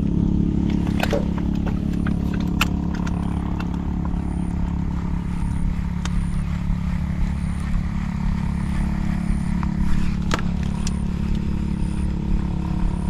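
A small engine running steadily at an even speed, with a few sharp clicks over it.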